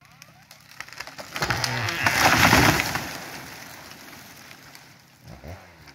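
A dead ash tree falling: crackling and splitting of the trunk builds up, then the crown crashes to the ground about two seconds in, and the noise dies away over the next few seconds.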